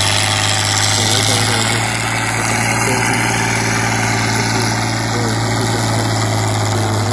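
Fiat four-wheel-drive tractor's diesel engine running steadily with a deep, even drone as it works a rotary power harrow through the soil.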